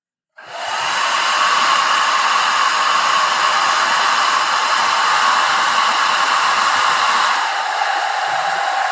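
Remington ONE Dry & Style ionic hair dryer switching on and blowing steadily, a rush of air with a steady whine from its fan. About seven and a half seconds in, the whine drops lower in pitch and the sound gets slightly quieter.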